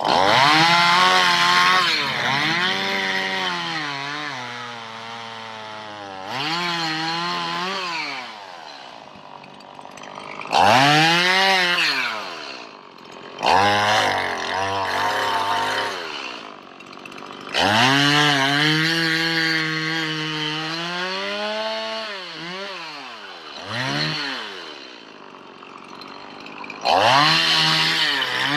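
Gasoline chainsaw cutting up fallen branches. It is throttled up in about seven sharp bursts, and after each the engine pitch sags and drops back toward idle before the next.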